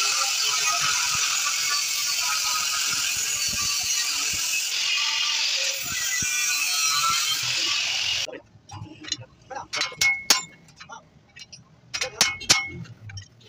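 Angle grinder with a cut-off disc cutting into a steel saw blade: a steady, loud grinding noise that stops abruptly about eight seconds in. Then a hammer strikes a chisel against the steel blade a handful of times, sharp metallic blows each with a short ring.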